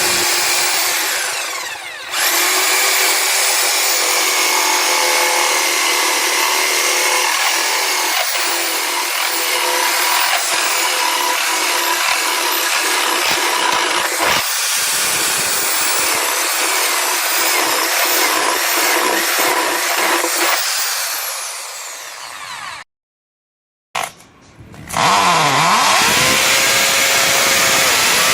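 Electric power drill running at full speed with a high whine, in separate takes. It cuts off abruptly about 23 seconds in, then after a short blip starts again, its pitch dipping and climbing as it spins up before running steady.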